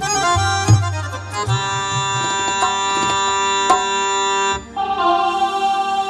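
Electronic keyboard playing a reedy, accordion-like patch: a short run of quick notes, then a long held chord. About four and a half seconds in it breaks off briefly and a new sustained note begins.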